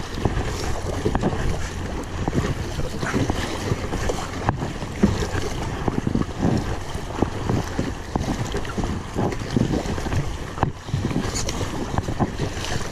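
Kayak on a river: rushing, splashing water and irregular paddle splashes, with wind buffeting the microphone.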